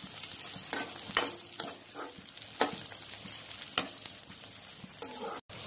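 Sliced onions sizzling in hot mustard oil in a metal kadai, with a metal spatula stirring and scraping against the pan in a few sharp clinks.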